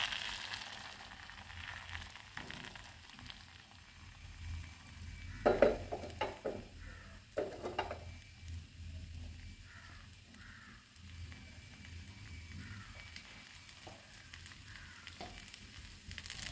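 Appam batter sizzling in a hot kadai on a gas burner as it sets and bubbles. A couple of brief knocks come about five and a half and eight seconds in.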